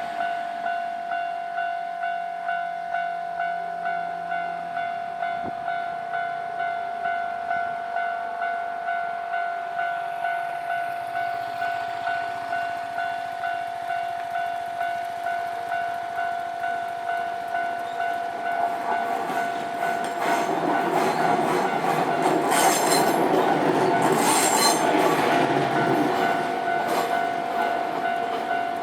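Japanese level-crossing warning bell ringing its steady repeating electronic tone on the Nankai Kōya Line. From about 19 seconds in, a Nankai train rumbles through the crossing with wheel clatter over the rails, loudest around 22 to 25 seconds, then fades.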